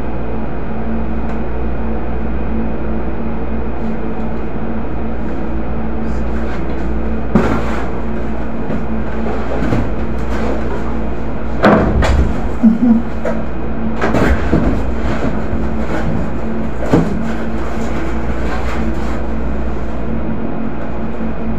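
Boxes and items being moved on wooden storage shelves: scattered knocks and clatters, the loudest in a cluster about halfway through. A steady mechanical hum runs underneath.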